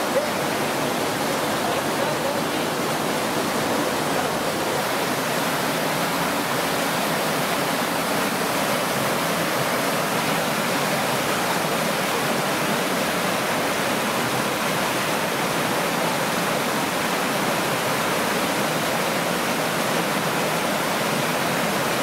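Small waterfall spilling into a rock pool: a steady, even rush of falling water.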